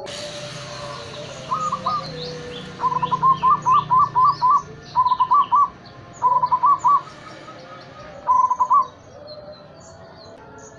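A zebra dove (perkutut) singing. Its song comes in five bursts of quick, clipped cooing notes: a short pair about a second and a half in, a long run of about eight notes near three seconds, then three shorter phrases. Small birds chirp faintly in the background.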